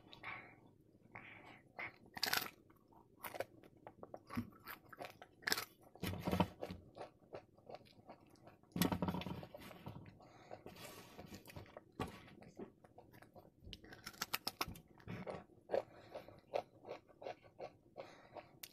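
Crisp deep-fried puri crackling as it is torn by hand, with crunchy bites and chewing in an irregular run, a few bites louder than the rest.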